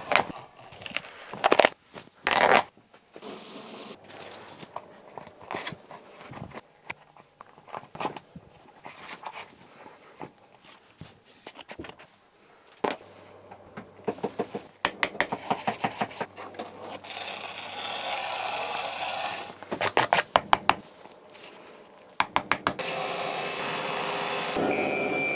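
Shoe-repair workbench sounds in quick succession: scraping, rubbing and spraying on the shoes, with a run of rapid ticks or taps a little past halfway and a steady hiss near the end.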